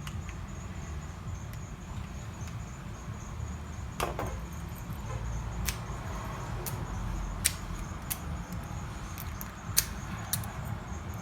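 Small sharp metal clicks and light scraping from a storefront mortise lock cylinder being handled and worked, a part of it stiff, over a steady low hum.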